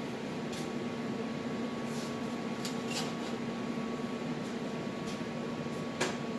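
Stick welding with 7018 rods: a steady arc hum and hiss with scattered sharp crackles, the loudest about six seconds in.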